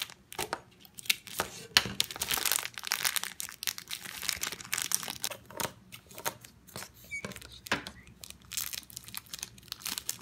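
Thin clear plastic packaging bags crinkling and tearing as they are handled and opened, in dense irregular crackles that are busiest in the middle.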